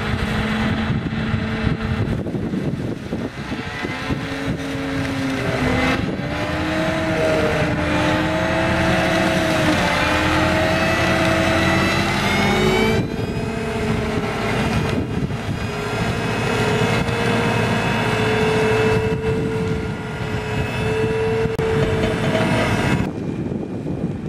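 Tractor engine under load driving a Rolmex KR520 reach mower's hydraulic flail head through grass: a loud, dense running noise with engine tones that shift in pitch. The sound changes abruptly a few times.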